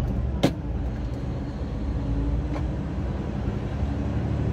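Diesel engine of a Hino semi-tractor running steadily under way, a low drone heard from inside the cab. A single sharp click about half a second in, and a fainter one a couple of seconds later.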